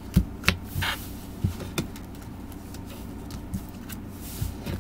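Tarot cards handled and set down on a table: a few sharp taps and short papery rustles over a faint steady low hum.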